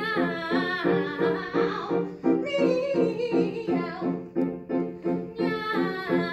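Operatic female voice singing with vibrato in a comic cat duet, the words sung as meows, over steady repeated piano chords.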